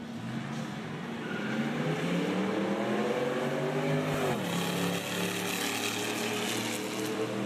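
A single car's engine accelerating hard along the track, its note climbing steadily, then dropping sharply about four seconds in as the car comes past, and running on afterwards.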